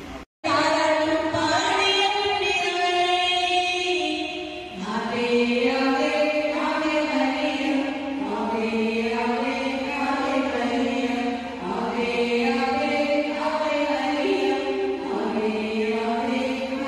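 Slow devotional hymn singing: long held notes that step slowly up and down in pitch. It begins after a brief cut-out in the audio just after the start.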